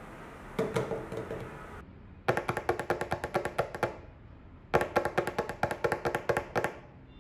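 Fingers drumming quickly on a tabletop: a few knocks about half a second in, then two runs of rapid taps, each lasting about two seconds.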